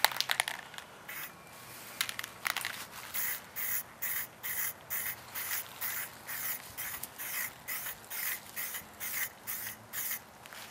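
Aerosol spray-paint can spraying in short, quick bursts, about two or three a second, starting about two seconds in: a fresh coat going onto a helmet.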